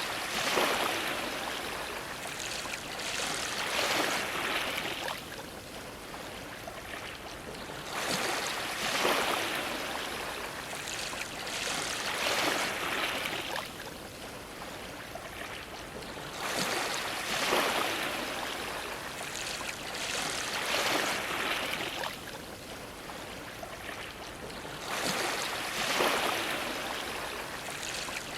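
Ocean waves washing against a dock, surging about every eight seconds. Each surge splashes and sloshes for several seconds before easing.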